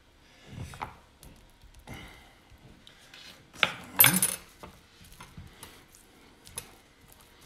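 Kitchen handling of a raw pork rib slab on a wooden cutting board. A soft bump as the slab is turned over, then a metal spoon clatters sharply about halfway through, the loudest sound, as mustard is spooned out. Faint smearing noises follow as a gloved hand spreads the mustard over the meat.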